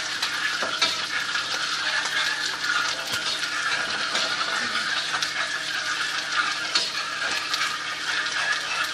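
A spoon stirring brown sugar into hot water in a pot, with many small scrapes and taps against the pot, over a steady hiss.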